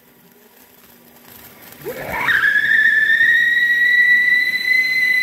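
Ground fountain firework (flower pot) erupting: about two seconds in it flares up with a rising whistle that settles into a steady high whistle over a hiss of sparks.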